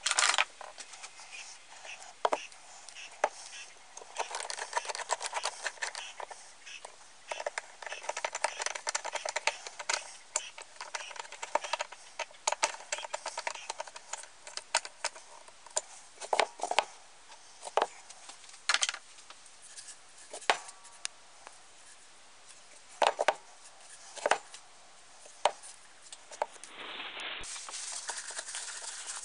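Hand screwdriver driving a small screw into the top of a Game Junior camp stove's metal fuel tank: rapid light clicks and scraping, with a few sharper knocks of metal on metal. Near the end, a paper towel rubs over the tank.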